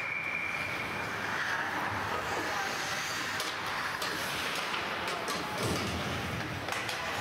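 Referee's whistle, one steady blast about a second long as play stops, over ice-rink noise of skates on ice, a few sharp stick or puck clacks and distant players' voices.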